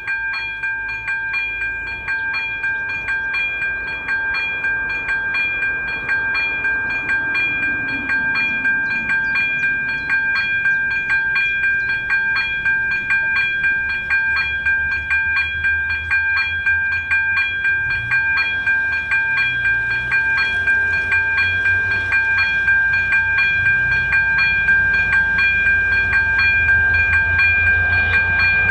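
Czech level-crossing warning bell, an AŽD electronic bell type ZV02, ringing steadily with a rapid, even strike rhythm, warning of an approaching train. From about eighteen seconds in, a low rumble from the approaching train builds under it and grows louder toward the end.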